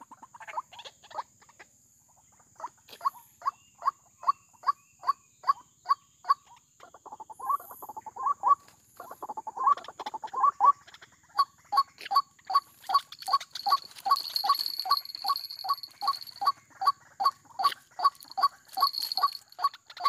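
White-breasted waterhen calling: a repeated harsh note about three times a second, breaking into two quicker runs of notes in the middle. A steady high whine runs underneath.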